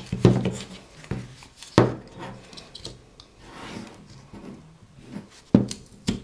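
Carving knife cutting into a wooden blank by hand: soft scraping strokes broken by a few sharp cracks as cuts go through, the loudest near the start, about two seconds in and near the end.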